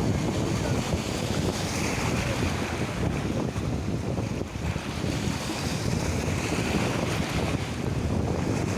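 Wind buffeting the microphone over the wash of sea waves: a loud, steady noise heaviest in the low end.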